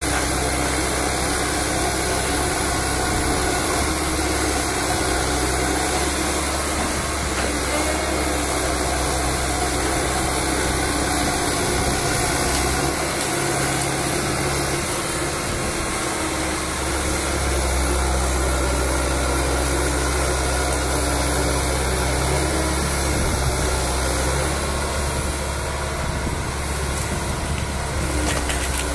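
Liebherr 904 wheeled material handler's diesel engine running steadily while its hydraulic boom and grab work. The low drone grows louder for a few seconds past the middle, then eases back.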